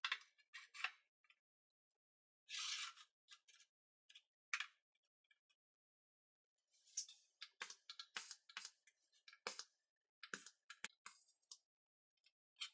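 Faint, scattered clicks and knocks of magnetic welding squares and aluminium spirit levels being set against a square-tube steel frame, with a short scrape about two and a half seconds in and a burst of sharper clicks in the second half.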